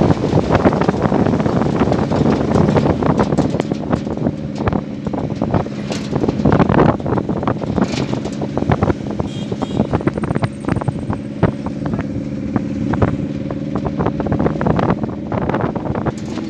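Engine and road noise heard from inside a moving vehicle, with wind buffeting the microphone and frequent short knocks and rattles. A steady engine hum comes through more clearly in the second half.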